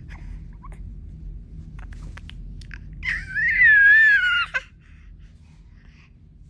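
A five-month-old baby lets out one loud, high-pitched squeal about three seconds in, lasting about a second and a half and wavering in pitch.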